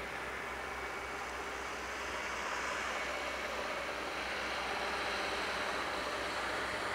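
Steady outdoor background noise: a broad hiss with a low hum beneath it, growing slightly louder about two seconds in.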